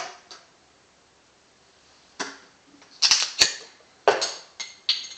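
Knocks and clicks of a 40-ounce glass malt liquor bottle being picked up and handled against a counter, a handful spread over several seconds, the sharpest two close together about three seconds in. A short ringing tone sounds near the end.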